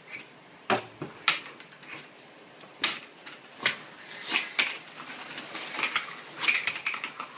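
A series of light clicks and clatters of hard objects, irregularly spaced, some with a brief ring.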